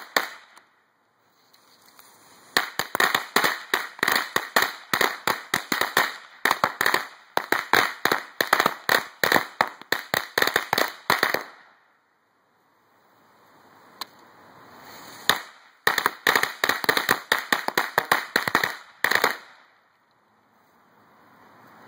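Cutting Edge ladyfinger firecrackers going off in rapid strings of sharp cracks. One string runs for about nine seconds. After a pause with a rising hiss comes a single crack, then another string of about three seconds.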